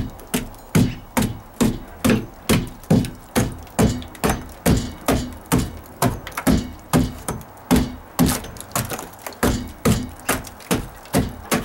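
A hammer striking dry-rotted wood at the corner of a wall over and over, about two to three blows a second, beating a hole through the rotten wood.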